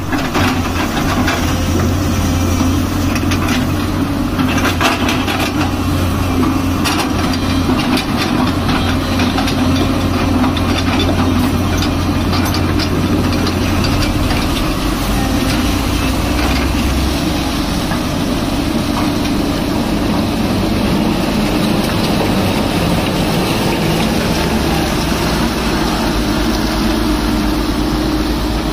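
Heavy diesel machinery running steadily: a Tata Hitachi crawler excavator working close by, with other site machines around it. The low engine hum steps down to a lower note about halfway through.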